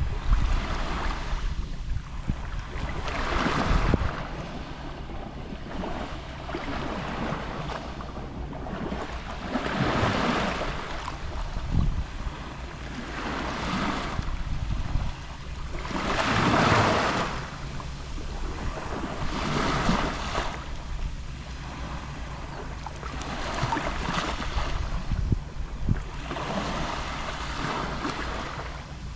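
Gentle sea waves lapping on the shore, each wash swelling and fading every few seconds, the strongest one about midway. A steady low rumble of wind on the microphone runs underneath.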